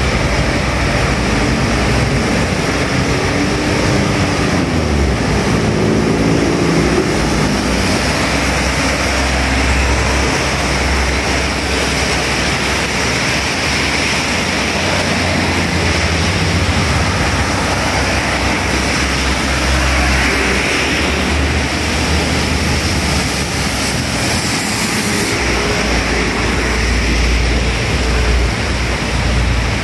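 Traffic on a wet road: a steady hiss of tyres through water under the running engines of passing cars, buses and motorbikes. A few seconds in, one vehicle's engine note rises and falls as it goes by.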